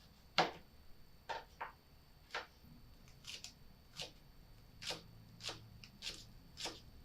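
Kitchen knife cutting carrots into julienne strips on a cutting board: about a dozen separate knocks of the blade on the board, roughly one or two a second, unevenly spaced.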